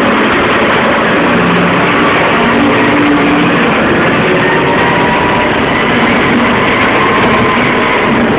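Bulldozer running loud and steady while working, its diesel and running gear making a dense racket, with a few faint thin squealing tones over it.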